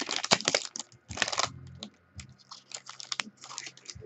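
Foil wrapper of a trading-card pack crinkling and crackling as it is torn open and the cards are slid out. The crackling is dense for the first two seconds, then lighter and scattered.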